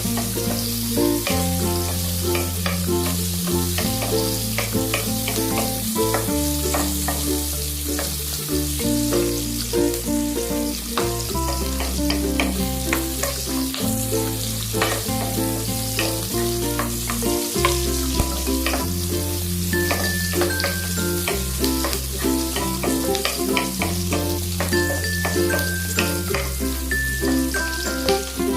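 Food sizzling as it fries in a pan, with short scrapes and taps from stirring, under background music with held bass notes and a melody.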